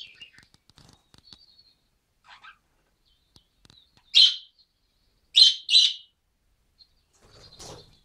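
Budgerigars chirping in a cage: softer scattered chirps, then a loud short call about four seconds in and two more in quick succession about a second later.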